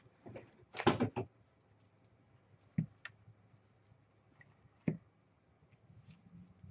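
Handling noise from crafting materials: a short burst of rustling as lace fabric is lifted about a second in, then two sharp light knocks a couple of seconds apart and a few faint ticks.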